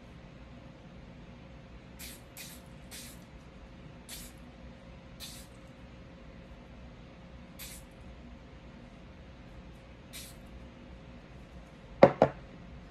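Seven short hissing bursts of an aerosol spray can, spaced a second or more apart. Near the end come two sharp knocks in quick succession, louder than the spray.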